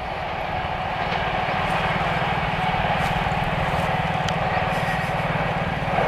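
Electric multiple-unit (MEMU) passenger train approaching at speed, its running noise on the rails steadily growing louder as it nears.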